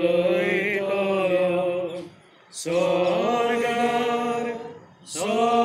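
A slow Konkani hymn sung in long, steady held notes, with short breaks between phrases about two seconds in and again near the end.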